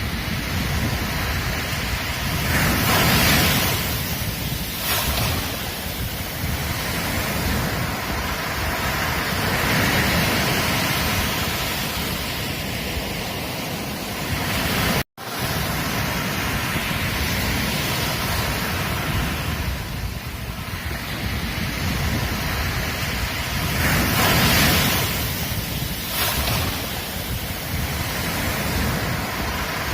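Ocean surf breaking and washing up on a beach, a steady rush that swells with each wave and eases between them. It cuts out completely for a split second about halfway through.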